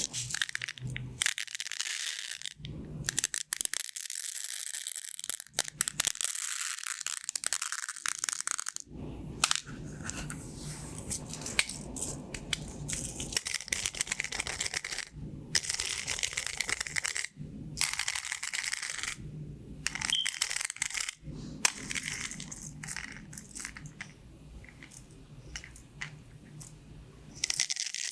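Pin-art toy's pins sliding and clattering against each other as hands press and shift them, in bursts of dense clicking.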